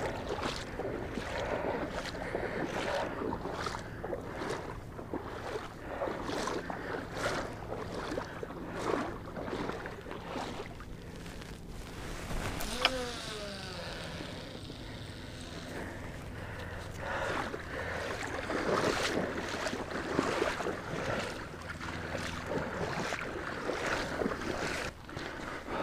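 Water lapping and splashing around the angler's legs, with wind on the microphone. About halfway through comes a sharp click, then a short falling whir as line pays off the spool of a Penn 525 Mag multiplier reel on the cast.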